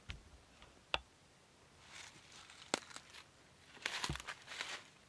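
Footsteps crunching through dry leaf litter, quiet, with three sharp clicks spread over the few seconds.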